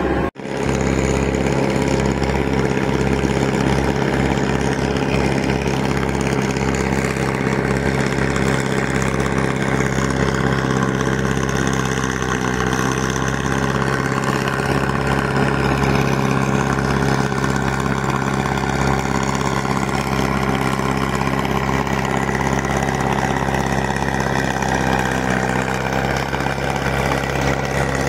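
Massey Ferguson 185 tractor's four-cylinder diesel engine running steadily under load while it drags a rotavator through a flooded paddy field. The sound cuts out for a moment just after the start, then carries on unchanged.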